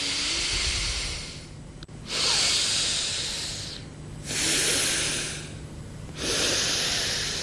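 Slow, audible breaths drawn in and let out through one nostril at a time in alternate-nostril breathing (anulom vilom pranayama). There are four breaths in a row, each a hiss of about two seconds with a brief pause between.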